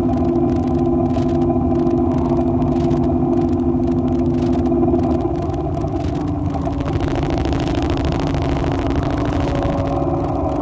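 A steady low drone with held tones over a rumble, like a machine running; the tones shift about five seconds in.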